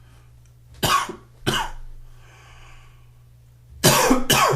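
A man's morning cough: two coughs, a pause, then two more coughs in quick succession near the end.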